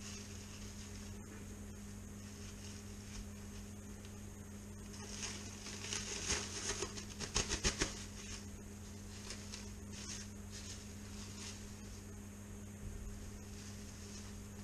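Plastic cling film crinkling and rustling as it is peeled off a wrapped fish loin, with a run of sharp crackles from about five to eight seconds in. A steady low hum runs underneath.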